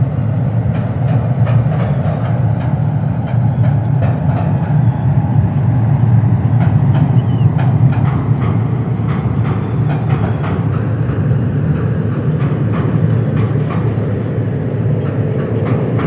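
Train rolling over a bridge: a steady low rumble with irregular clicking and clacking from the wheels on the rails.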